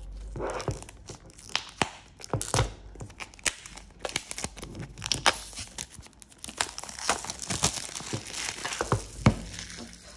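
Clear cellophane shrink-wrap being torn and peeled off a card box, crinkling and crackling with many sharp snaps; the loudest snap comes near the end.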